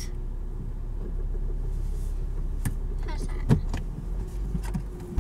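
Car engine running at low speed during reverse parking, heard from inside the cabin as a steady low rumble, with a few light clicks and one louder knock about three and a half seconds in.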